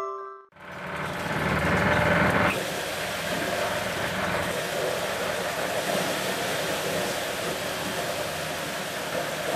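Corn sheller driven by a small petrol engine, running and shelling corn: a steady engine hum mixed with the rushing rattle of the threshing drum. It starts about half a second in and is loudest for the first two seconds, then settles to an even level.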